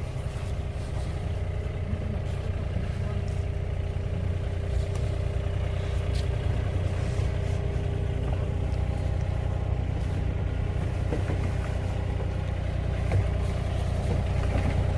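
Engine of heavy digging equipment running steadily, with a few sharp clanks over it.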